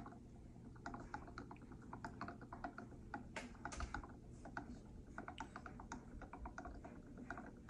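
Faint, irregular ticking and popping from an Epson EcoTank ink bottle draining upside down into the ET-2850's ink tank, as air bubbles rise into the bottle while the ink flows out.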